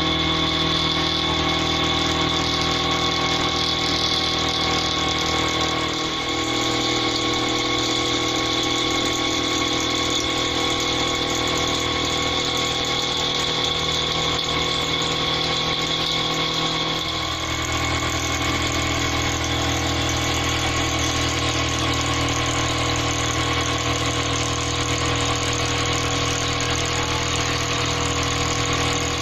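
SM-42 mini CNC milling machine running: a steady machine whine made of several fixed high and middle tones. The low drone underneath changes twice, about 6 seconds and 17 seconds in, as the machine's running changes.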